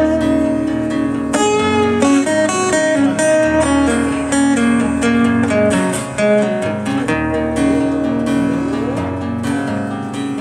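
Acoustic guitar playing an instrumental passage of a rock song, strummed chords with picked notes over a low bass line.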